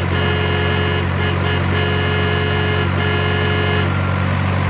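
Steady, loud low engine hum, like a truck idling. Over it a tune of held pitched notes plays and stops about four seconds in.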